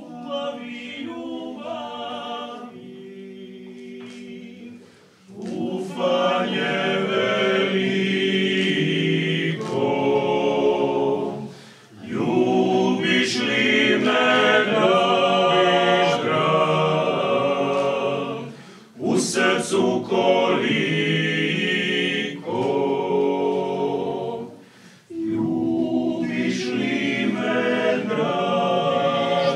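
Croatian klapa, a male a cappella vocal group, singing an unaccompanied song. The opening phrase is quieter; the full group comes in louder about five seconds in, with brief breaks between phrases.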